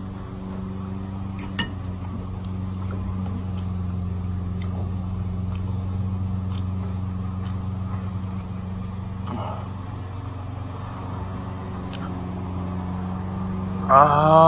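A steady low hum throughout, with a few faint clicks. A short voiced sound comes near the end.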